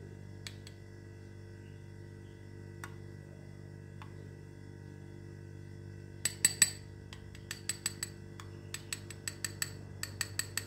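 Metal spoon clinking and scraping against the inside of a glass tumbler as sauce is streaked down its wall. A few single light clicks at first, then from about six seconds in a quick run of sharp clinks, several a second.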